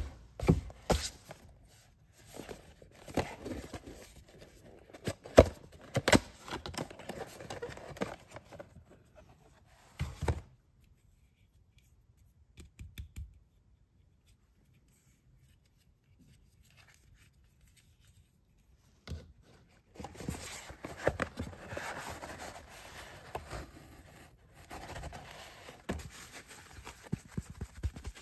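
Close-miked unboxing of a SpongeBob cartoon sponge holder: sharp clicks and taps of plastic and cardboard being handled, then scraping and crinkling of packaging. There is a quiet stretch of about eight seconds in the middle.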